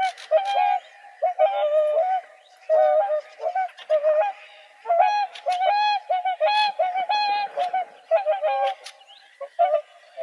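Swans calling: many short honking calls, some held a little longer, repeated and overlapping from more than one bird, with a quick run of short calls near the end.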